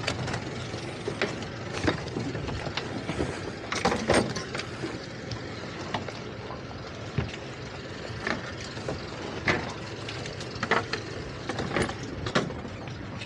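Irregular knocks and clunks from work on two boats tied side by side, crew moving gear and lines on deck, over a steady rushing background.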